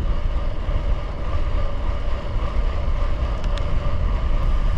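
Wind buffeting the microphone while riding a gravel bike: a steady low rumble, with a faint steady hum above it.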